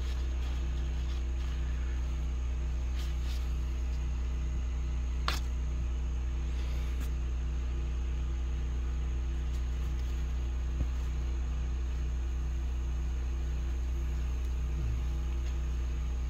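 Steady low mechanical hum, like an idling engine or running machine, unchanging throughout, with a couple of faint clicks about five and seven seconds in.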